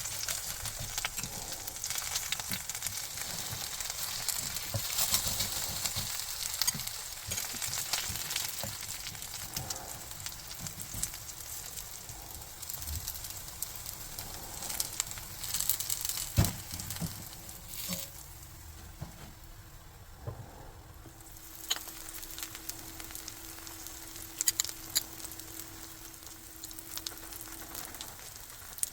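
Food sizzling and crackling in a hot frying pan, with occasional clicks of a utensil against the pan. The sizzle drops away briefly about eighteen seconds in, then carries on more softly.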